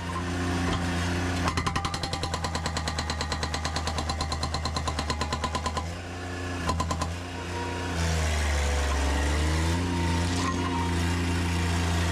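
Engine of a piece of construction machinery running steadily while a hydraulic breaker hammers rapidly, about eight blows a second, for some four seconds, then in a short second burst. Later the engine's pitch sags and comes back up as it takes load.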